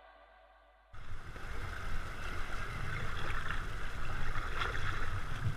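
Music fading out, then about a second in a sudden cut to rushing, splashing river water around inflatable kayaks, with a fluctuating low rumble of wind on the action camera's microphone.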